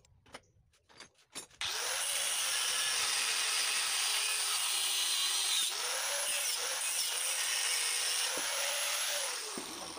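Handheld angle grinder cutting metal on a motorcycle's rear frame: a few light knocks, then the grinder spins up about a second and a half in and runs with a high whine that sags several times as the disc bites, winding down near the end.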